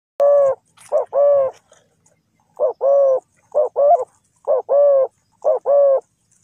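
Spotted dove cooing loudly at close range: a low single coo, then a run of paired coos, each a short note followed by a longer one, about one pair a second.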